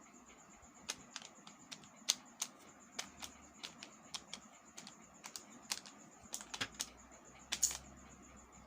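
Gems, small sugar-coated chocolate buttons, clicking one after another in sharp, irregular ticks a few tenths of a second apart, ending with a brief louder rattle near the end.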